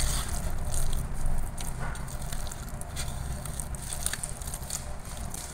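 A bare hand mashing and squeezing boiled pumpkin mixed with gram flour and spices in a stainless steel bowl: soft wet squishing with irregular small crackles and clicks.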